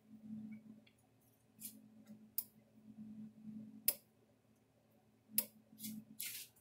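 Stafix M36R electric fence energizer firing just after power-up: sharp clicks with its output pulses, the strongest about a second and a half apart, over a faint low hum.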